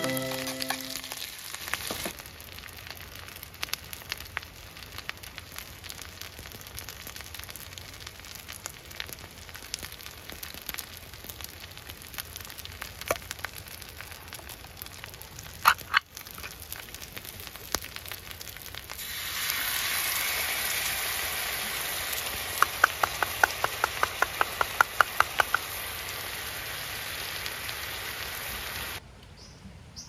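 Food frying in a pan, a steady crackling sizzle with scattered pops that grows louder about two-thirds of the way through. Near the end a quick run of about a dozen light taps comes at roughly four a second, and the sizzle cuts off sharply just before the end.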